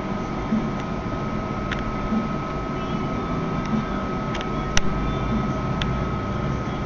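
Steady background hiss with a faint steady whine, and a few faint small ticks scattered through it as a tiny screw is driven into an iPhone 3GS with a small screwdriver.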